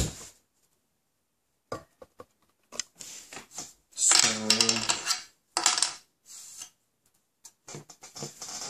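Small hard objects clicking and clinking as they are handled on a tabletop, in scattered short taps. About four seconds in comes a louder pitched sound lasting over a second, then a few more taps.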